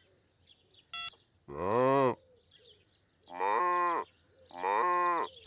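Cartoon cow mooing three times, each moo under a second long, the first bending up and down in pitch. A short electronic beep sounds about a second in, before the first moo.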